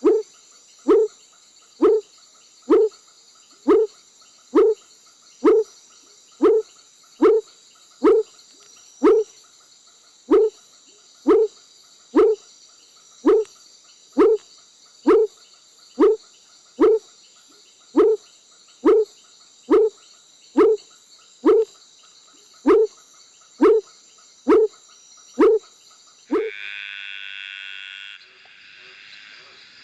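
A large frog calling: a short, loud croak that drops in pitch, repeated evenly about once a second, nearly thirty times, over a steady high hum of insects. Near the end it gives way to a small tree frog's higher call, which rises in pitch.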